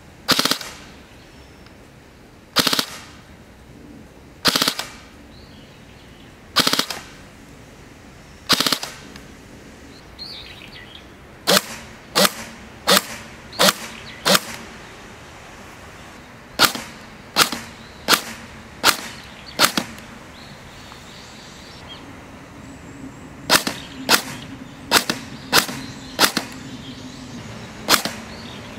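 Airsoft electric M4A1 replica with a FUTURE TRIGGER electronic trigger firing repeatedly, each shot a sharp crack. First come five shots about two seconds apart, then groups of five or six shots about two-thirds of a second apart.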